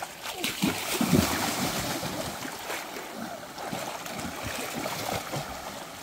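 Water splashing as people crawl and wade through a shallow rocky stream, over the steady rush of the flowing water. The splashing is heaviest in the first second or so, with irregular sloshing thumps.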